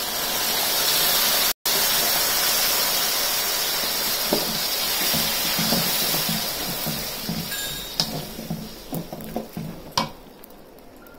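Tamarind pulp sizzling as it hits the hot oil of a fried tempering in an aluminium kadai, stirred with a wooden spatula. The hiss dies down after about seven seconds, and the spatula knocks on the pan twice near the end.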